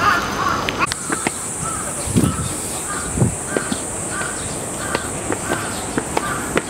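A crow cawing over and over, about two caws a second. From about a second in a steady high hiss runs underneath, and footsteps sound on stone steps.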